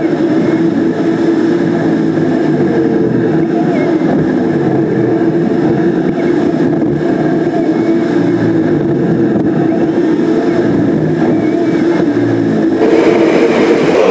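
Car driving at a steady speed: engine and road noise at an even level, turning brighter and hissier near the end.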